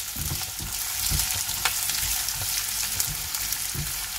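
Sliced onions sizzling in hot oil in a nonstick pan, freshly added and frying to soften, with a steady hiss. A spatula stirs them, scraping and knocking against the pan several times.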